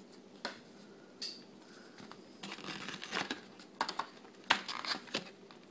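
Yu-Gi-Oh trading cards and foil booster-pack wrappers being handled: light crinkling with a scatter of short, sharp clicks and taps, most of them in the second half.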